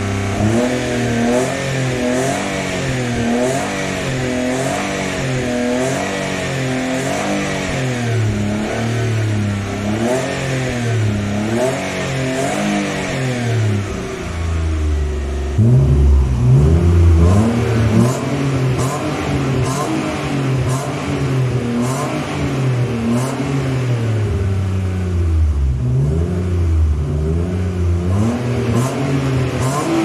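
Alfa Romeo 156's 2.5-litre Busso V6 being revved in place, again and again, its pitch rising and falling with each blip of the throttle. From about halfway it is louder, heard from beside the car rather than from inside the cabin.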